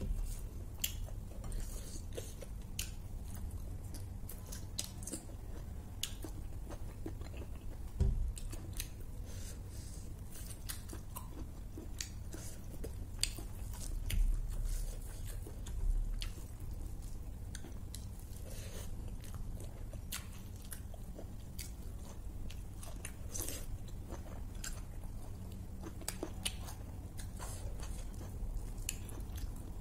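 Close-up eating sounds: chewing and biting with many short, sharp wet mouth clicks and crunches. There is a single low thump about eight seconds in.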